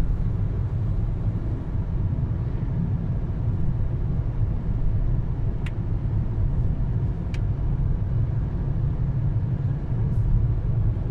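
Steady low rumble of road and engine noise heard inside a moving car's cabin while cruising. Two short ticks about the middle.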